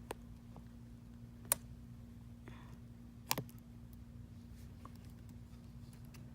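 A few sharp clicks, the last a quick double, from small repair tools and phone parts being handled while an iPhone is reassembled, over a steady low hum.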